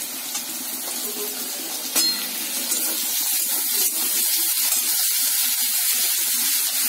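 Chopped garlic and green chillies sizzling in hot mustard oil in a steel kadhai, stirred with a metal spatula, with a sharp tick of the spatula about two seconds in. The sizzle grows a little louder around three seconds in, as the chillies go into the oil.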